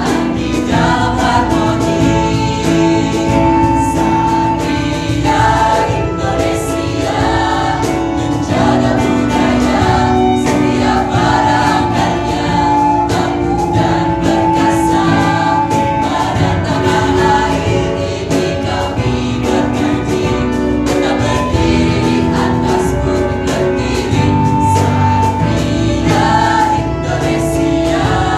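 Mixed-voice vocal group of boys and girls singing a song in multi-part harmony, holding long chords, over a steady light percussion beat.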